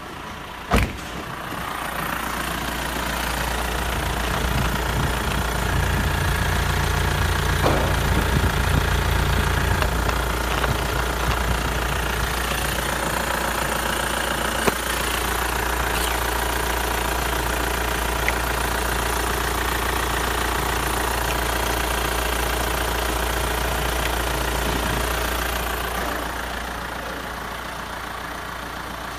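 Hyundai Sonata NF's 2.0-litre D4EA four-cylinder common-rail turbodiesel idling steadily, heard up close in the engine bay. A single sharp knock comes about a second in.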